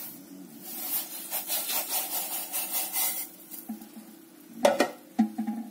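Granulated sugar poured into a pot of warming milk: a grainy, rasping hiss for about three seconds. A single knock follows a little after four and a half seconds.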